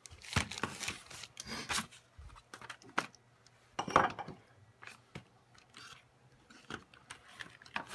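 Handling noises: paper rustling and light knocks and clicks of things being picked up and moved on a desk, coming irregularly, loudest about four seconds in.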